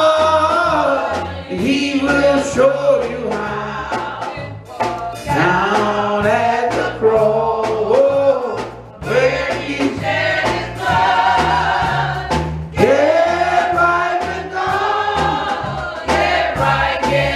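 Gospel choir singing a slow hymn with a band, a bass line stepping from note to note underneath the voices.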